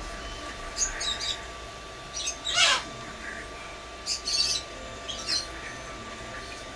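A small bird chirping in short high bursts, with one louder whistle about two and a half seconds in that sweeps down in pitch.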